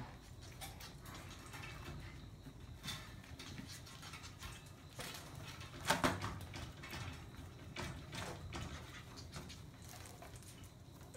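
Maltese puppies playing with a foil balloon: scattered soft taps, scuffs and rustles, with one louder knock about six seconds in.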